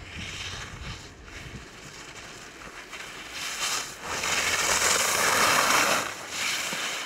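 Wind buffeting the microphone and water rushing along a boat's hull. A louder rushing hiss, like spray or a gust, swells about four seconds in and lasts about two seconds.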